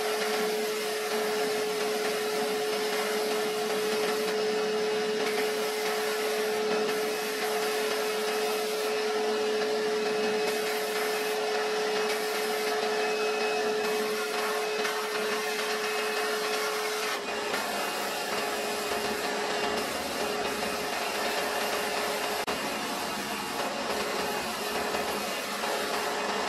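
Abrasive blast gun in a sandblasting cabinet hissing steadily as it blasts a small metal mixer part. A steady humming tone runs under the hiss and weakens about two-thirds of the way through.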